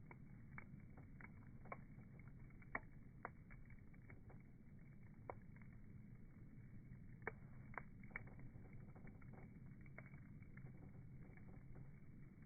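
Wood bonfire crackling: irregular sharp pops and snaps over a faint, steady low rush of the burning fire.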